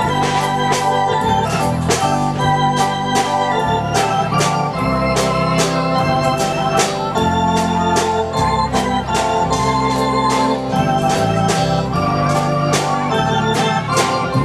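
Waltz music playing: held chords over a bass line and a steady beat.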